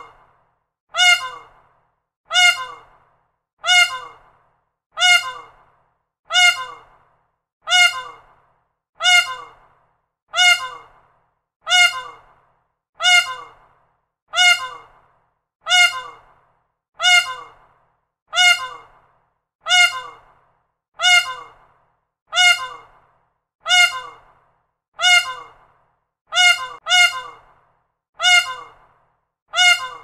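Peacock calling over and over at an even pace, one loud call about every 1.3 seconds, each starting sharply and dying away in under a second. Near the end two calls come almost back to back.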